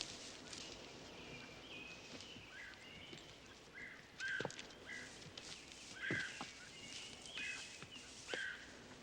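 Outdoor ambience of birds calling, short chirps repeating every second or two, with a few scattered knocks.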